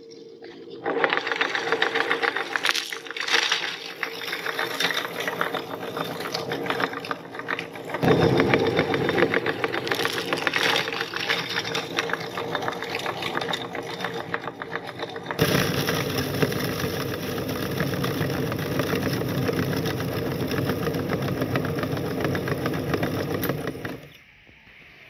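Metal meat grinder crushing candy into powder: a dense, continuous crunching and rattling that stops sharply near the end.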